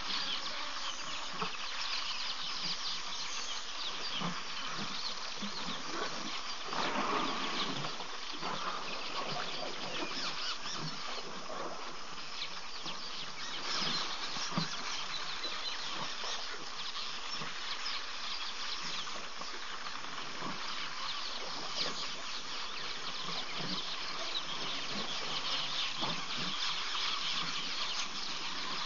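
Steady outdoor bush ambience: a dense, high hiss of insects with fine crackling and scattered soft low knocks.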